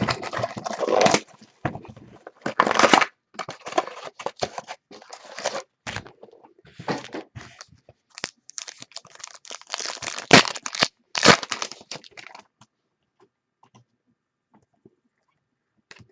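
Trading card pack wrappers being torn open and crinkled, with cards shuffled in hand: a run of tearing and crinkling rustles that stops about twelve seconds in.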